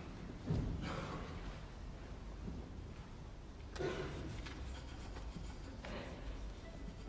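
Audience noise in a hushed concert hall: scattered coughs and rustling, with three short bursts about half a second in, around four seconds in and near six seconds.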